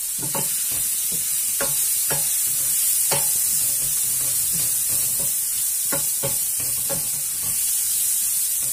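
Chopped leeks sizzling in oil in a stainless-steel pan, stirred with a wooden spoon that knocks and scrapes against the pan every second or so.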